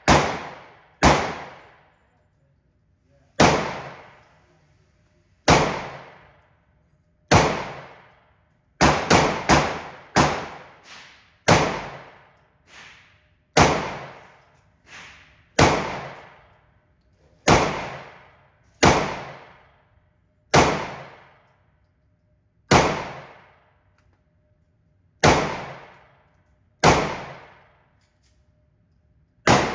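Gunfire at an indoor shooting range: about twenty sharp shots, irregularly spaced a second or two apart with a quick run of three or four near the middle, each followed by a ringing echo off the walls. A few fainter shots fall between them.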